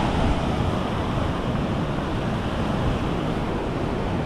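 Ocean surf breaking and washing up a sandy beach, with wind buffeting the microphone: a steady rushing noise with a low rumble.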